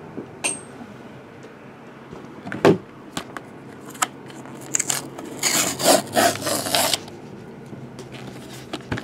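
Hands handling and opening a cardboard box: scattered taps and a sharp knock, then about a second and a half of scraping, rustling cardboard.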